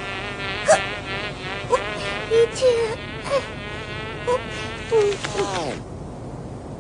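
Cartoon fly buzzing: a steady, wavering wing drone with short squeaky blips over it, ending in a falling glide about five and a half seconds in, after which it goes quiet.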